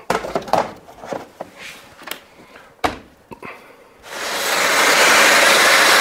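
Light plastic clicks and knocks as a tumble dryer's plastic back cover is handled and fitted, with one sharper knock; about four seconds in a vacuum cleaner starts up and runs steadily, the loudest sound.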